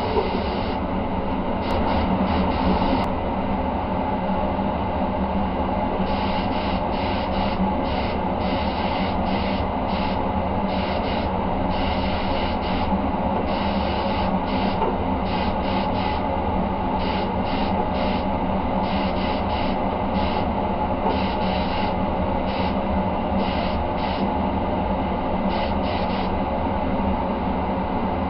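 Mini paint spray gun hissing in many short bursts, one per trigger pull, as it lays on single-stage silver paint, over a steady background drone.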